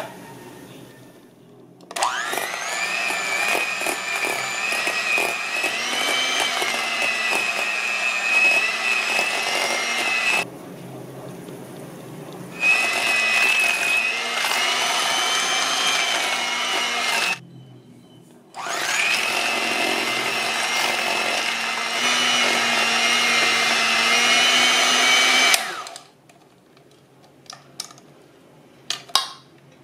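Electric hand mixer whining steadily as its beaters whip cream cheese and sugar in a stainless steel bowl until smooth. It runs in three long spells, with a brief drop and a short stop between them, and cuts off a few seconds before the end. A few light taps follow.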